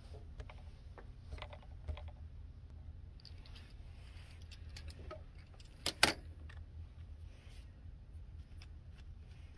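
Faint clicks and taps of a screwdriver being picked up and set to the Phillips screws on the bottom panel of a laptop, with two sharper clicks together about six seconds in.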